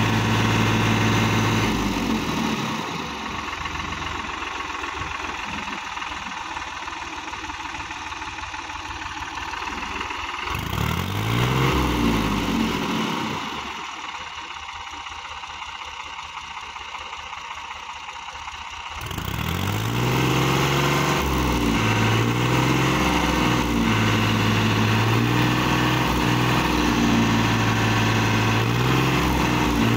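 New Holland TT55 tractor's diesel engine straining to free the tractor, which is stuck in a muddy paddy field. It runs loud at first, drops back to a quieter idle, revs up and down briefly near the middle, idles again, and about two-thirds of the way through runs loud once more with its revs rising and falling repeatedly.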